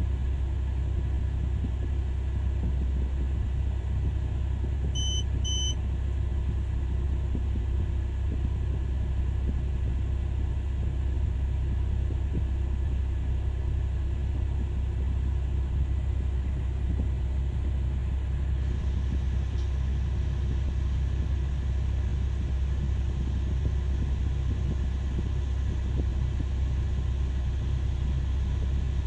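Caterpillar 6020B hydraulic mining excavator's diesel engine running with a steady deep rumble. Two short high beeps sound about five seconds in.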